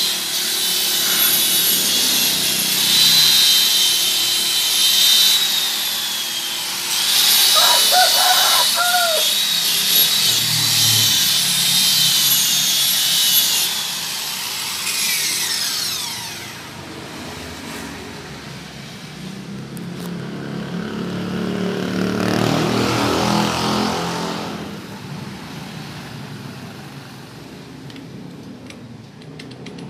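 Electric rotary car polisher with a wool pad buffing car door paint with compound, its motor giving a steady high whine that wavers with the pressure on the pad. About fourteen seconds in it winds down with a falling whine.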